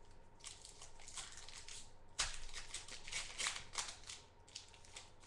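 Football trading cards being handled and slid off a stack by hand: a run of short papery swishes and flicks, the sharpest about two seconds in.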